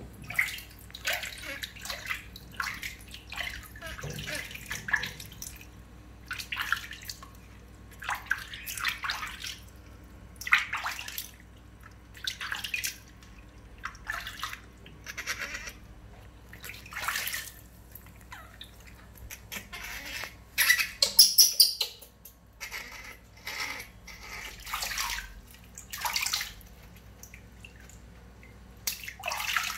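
Water splashing in a plastic basin as hands scoop and pour it over a bathing baby monkey: repeated short splashes every second or two, the loudest a little past two-thirds of the way through.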